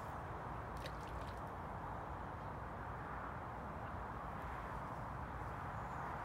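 Steady rush of river water flowing past the bank, with a few faint clicks about a second in.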